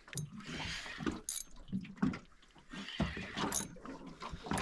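Irregular knocks and clicks from a small aluminium boat and the angler's spinning tackle while he pumps a heavily bent rod against a big fish, with short bursts of hiss about a second in and again past three seconds.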